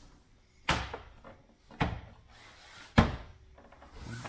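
Three sharp knocks about a second apart, the last the loudest: a hand pressing and thumping a clip-in plastic trim piece into a BMW Mini's front bumper. The worn clip has little hold, so the part keeps popping back out.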